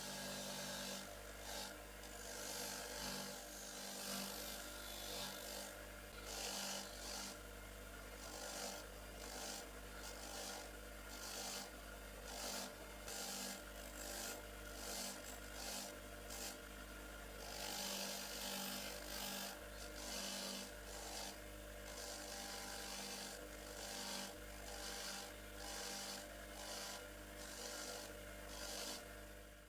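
Rhythmic hand-abrading strokes, rubbing or filing back and forth about once or twice a second, on a rusty antique spray gun being cleaned up. A steady low hum runs underneath.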